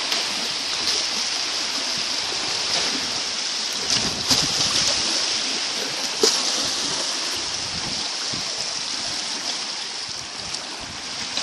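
Small wind-driven waves lapping and splashing steadily onto a pebble shore, with a few louder splashes about four and six seconds in.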